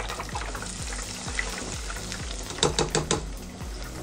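Breaded brie pieces deep-frying in hot oil in a steel pot: a steady sizzle as a fresh batch goes in. About two and a half seconds in comes a quick run of metallic clinks, a metal skimmer knocking against the pot.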